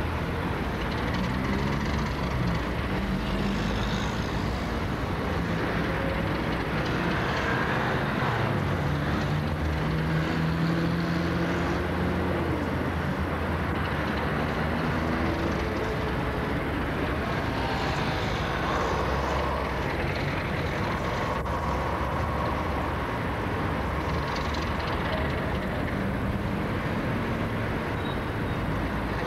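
ALCo 48 class diesel-electric locomotive's engine working at low speed as it moves a train of passenger cars, its note rising and falling.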